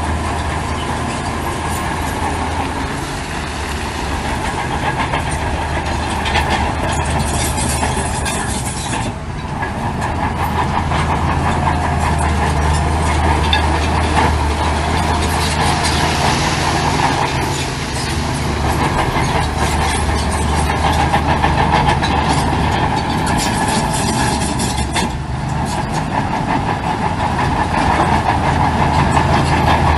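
Heavy diesel earthmoving machinery running steadily, with metallic clanking and rattling over the engine hum.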